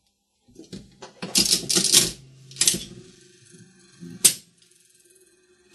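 Stripped-out mechanism of a vintage mechanical one-armed bandit being worked by its handle: a quick run of clattering metal clicks and rattles from its levers and clock for about two seconds, then quieter, with one sharp clack about four seconds in.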